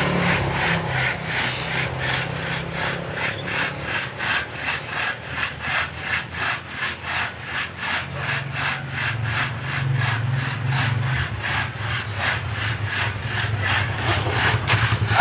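Two-person hand crosscut saw cutting through a mango trunk. It makes a steady back-and-forth rasp, nearly three strokes a second.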